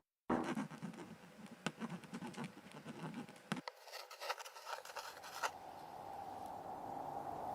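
Faint scratching and rustling with scattered sharp clicks, irregular and uneven, that give way about five seconds in to a faint steady hum.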